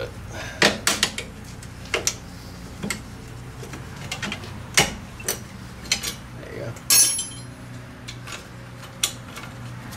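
Steel drum-brake hardware being worked with a brake spring tool: scattered sharp metal clinks and clicks of the tool, springs and adjuster arm against the brake shoes and backing plate. The loudest clank, about seven seconds in, rings briefly.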